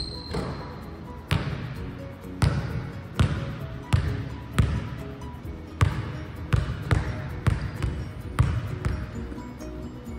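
A basketball bouncing on a hardwood gym floor: about ten sharp, unevenly spaced bounces, each echoing in the large hall, over background music.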